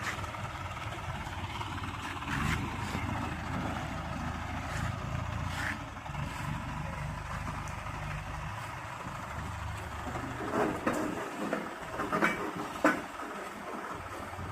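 Diesel engine of a Hydra pick-and-carry crane running steadily, its low note fading about two-thirds of the way in, followed by a few sharp knocks near the end.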